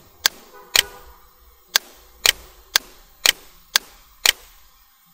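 Sharp single clicks of a computer mouse and keyboard keys, about eight of them, roughly two a second and unevenly spaced.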